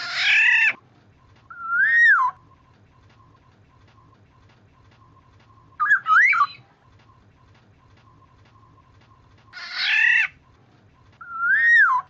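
Oriole (kepodang) calls: a harsh call followed about a second later by a clear whistle that rises and falls, a quick two-note whistle about halfway, then the harsh call and rising-falling whistle again near the end.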